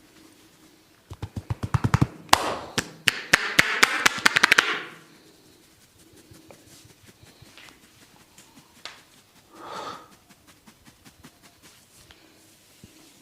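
A barber's hands working on a person's head in a head massage: a quick run of sharp taps and slaps begins about a second in, with rubbing and scratching in the hair, and it stops after a few seconds. Fainter taps and clicks follow, with a short rub near the end.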